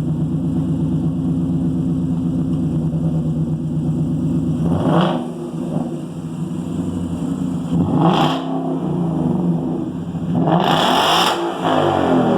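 2015 Ford Mustang GT's 5.0-litre V8 idling through a muffler-delete exhaust, then revved three times: two quick blips about five and eight seconds in, and a longer rev near the end, each note rising and falling back to idle.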